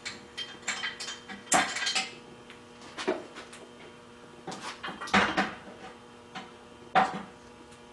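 Scattered metal clanks and knocks, about seven or eight, from steel parts being handled as the home-made end-mill sharpening unit (a spindle bolted to channel iron) is taken off the press, with a steady low electrical hum beneath.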